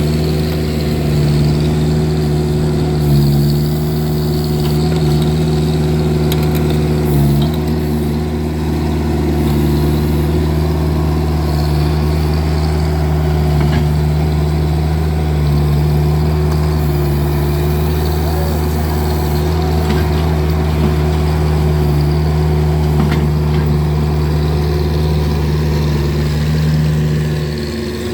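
Vermeer mini skid steer's engine running steadily under work, with a brief break in its note about seven seconds in and a dip near the end.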